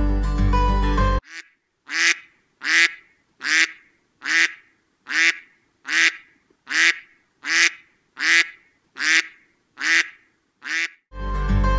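A run of about thirteen identical short bird calls, evenly spaced about one every 0.7 s with dead silence between them. Plucked guitar music stops abruptly about a second in and comes back near the end.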